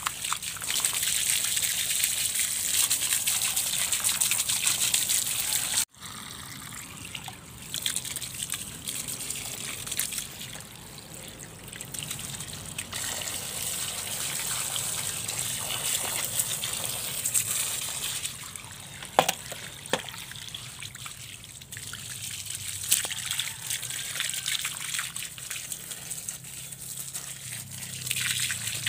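Water from a garden hose splashing and trickling over a grass trimmer's cutting head, shaft and blade guard, rinsing off grass and mud. The spray is louder for about the first six seconds, drops suddenly, then runs on more quietly with an occasional short knock.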